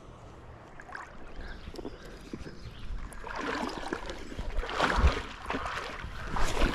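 Shallow river water sloshing and splashing around a wading angler's legs, in irregular swishes that grow louder about three seconds in.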